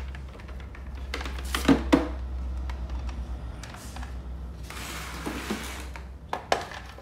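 Hard plastic clatter of a Ryobi battery charger and its cord being handled and set down against a plastic toolbox: two sharp knocks about two seconds in, a rustle around five seconds, and a few clicks near the end, over a steady low hum.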